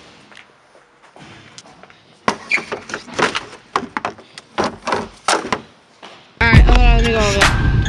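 A cheap skateboard banging and knocking against a trash bin as it is thrown away: about ten sharp knocks over three seconds. Loud music starts suddenly near the end.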